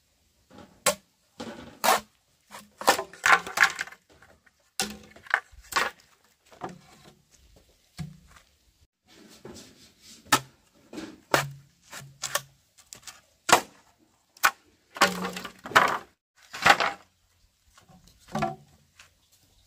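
Bamboo being worked by hand: irregular sharp wooden knocks, clacks and thuds, sometimes several in quick succession, with gaps of a second or so between groups.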